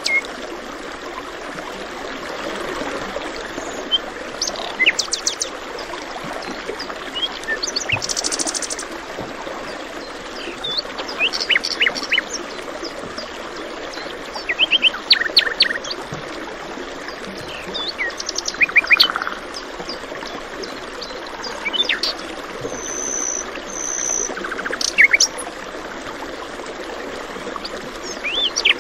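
Several songbirds chirping and calling in short bursts and trills over the steady rush of a stream.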